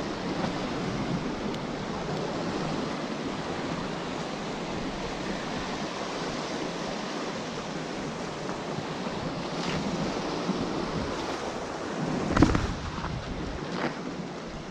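Waves washing against the rocks of an inlet jetty: a steady surf noise, with a brief louder knock about twelve seconds in.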